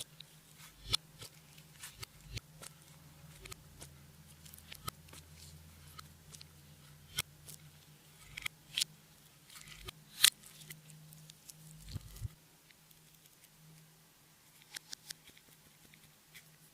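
Clear slime being worked by hand, giving irregular sticky clicks and small pops. A faint low hum stops about twelve seconds in.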